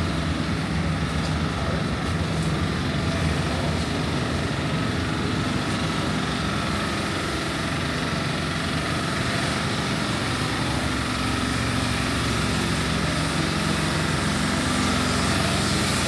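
An engine running steadily at a constant speed, with a held hum and a few steady tones over it.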